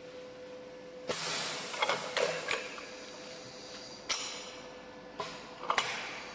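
Automatic cylindrical battery cell crimping machine running through its cycle: a steady hum under bursts of hiss and sharp mechanical clacks, the first burst about a second in and more around four, five and six seconds in.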